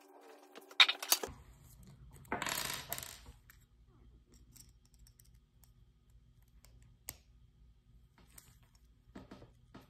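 Small metal hand tools, Allen keys, clinking on a wooden table while a small RC motor's screws are worked loose: a few sharp clinks about a second in, a short scraping rustle a little later, then scattered light ticks.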